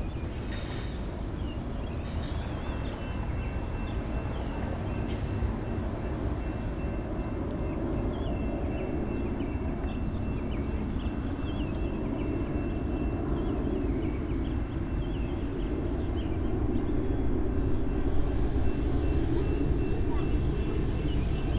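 Diesel freight train approaching in the distance, a low rumble that grows louder through the second half. Birds chirp over it, with a high insect-like chirp repeating about twice a second.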